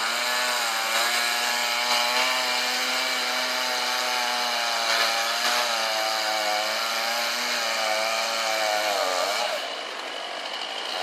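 Chainsaw engine running at steady high revs, its pitch wavering slightly; near the end it sags and quietens briefly before revving back up.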